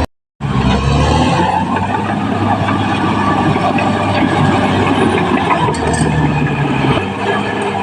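Caterpillar D6R XL bulldozer's diesel engine running steadily. The sound cuts out for a moment at the very start.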